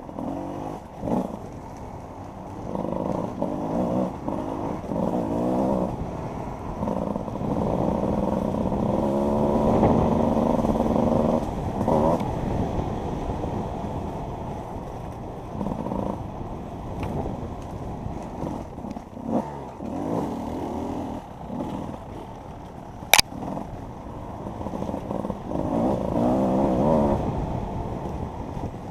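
Enduro motorcycle engine revving up and down repeatedly, the pitch rising and falling with the throttle. A single sharp knock about two-thirds of the way through.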